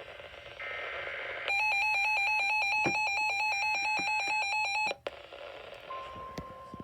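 Electronic emergency alert attention tone: a loud, harsh two-tone beep that warbles rapidly, starting about a second and a half in and cutting off abruptly just before five seconds. Near the end a fainter, steady single tone begins.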